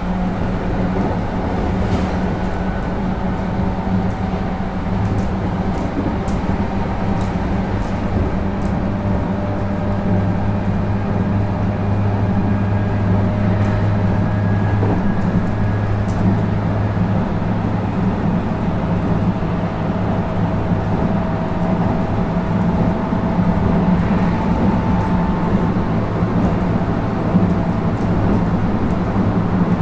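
Interior running sound of a JR West 221 series electric train with MT64 traction motors, heard from inside a motor car at speed: a steady low rumble and hum with faint motor tones slowly drifting in pitch, growing slightly louder. Air-conditioning noise and light rattles from the doors sit in the mix.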